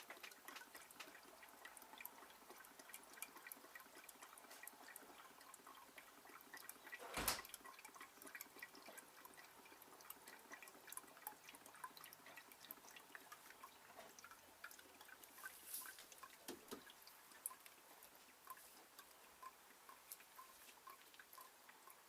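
Oil dripping and trickling out of an opened X-ray tube head into a tub, as faint, irregular drips. One louder knock about seven seconds in.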